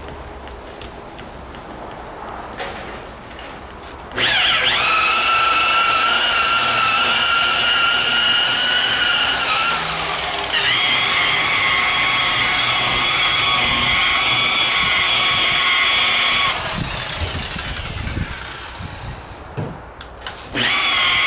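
DeWalt electric rotary buffer with a wool pad, cutting rubbing compound into old car paint in first-stage compounding; its motor gives a steady, high whine. It spins up about four seconds in, slows briefly near the middle and spins back up, shuts off about three-quarters of the way through, then starts again right at the end.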